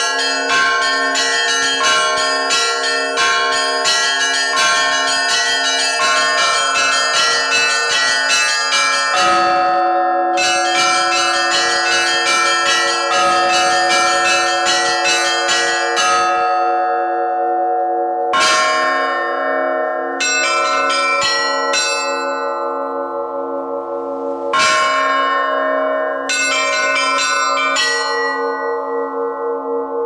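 Russian Orthodox church bells rung by hand from the belfry, the clappers of several fixed bells pulled by ropes. Quick, dense strikes on the small bells sound over a repeated deeper bell at first. About midway the pattern thins, with two short pauses where the bells are left ringing out before the strikes start again.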